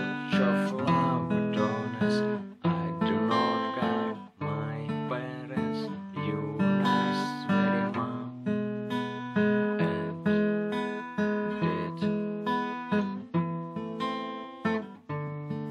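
Acoustic guitar strummed in a song, with the chords changing every second or so and each strum ringing out.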